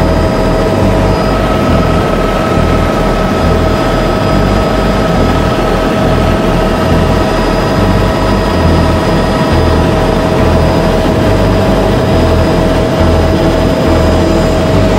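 Helicopter running: a loud, steady turbine whine over a constant rush of engine and rotor noise.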